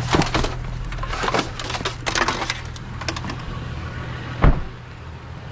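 Objects in a curbside trash pile being handled and shifted: a run of clattering knocks and scrapes, then one sharp, louder thump about four and a half seconds in, over a steady low hum.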